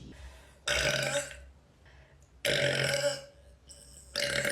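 A woman belching loudly three times, each belch lasting well under a second at a low, steady pitch, about a second and a half apart; the third is still going at the end.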